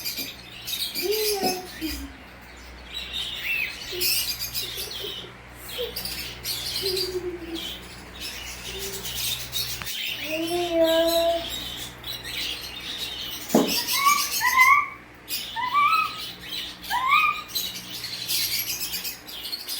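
Pet cockatiels chirping and chattering, with a series of short rising whistles repeated about once a second in the second half.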